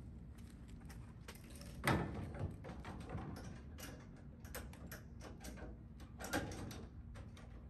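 Scattered clicks, knocks and light clatter of tools and equipment being handled in a pickup truck bed, with a louder knock about two seconds in and another near six and a half seconds.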